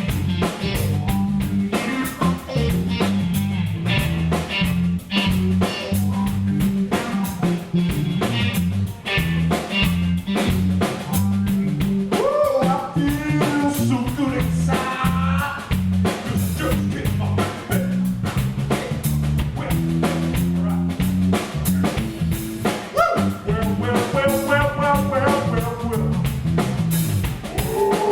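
Live blues band playing an instrumental break: drum kit and bass keep a steady groove under electric guitar, with a bending lead line about halfway through and again near the end.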